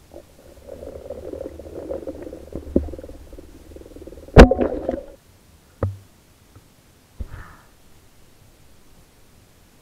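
Underwater, a speargun fires with a sharp, loud crack about four and a half seconds in, over a low rumble with scattered clicks. Two fainter thumps follow, then it goes faint.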